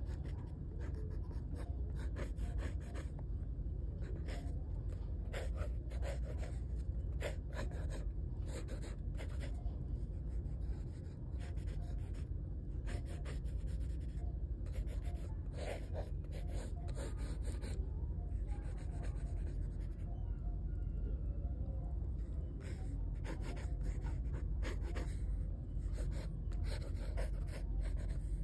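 Pencil scratching on paper in quick sketching and hatching strokes, many short strokes with brief pauses between them, over a steady low hum.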